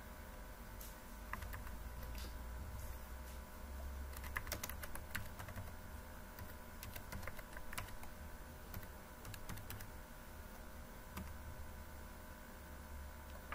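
Computer keyboard keys being typed in short irregular runs of clicks, over a faint steady low hum.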